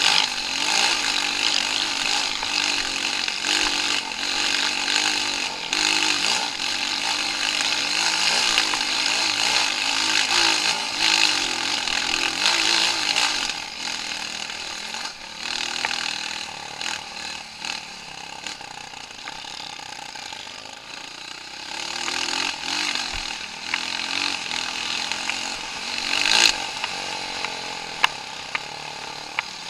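Off-road motorcycle engine running with the throttle worked up and down, its pitch rising and falling. It grows quieter about halfway through, and a few sharp knocks come near the end.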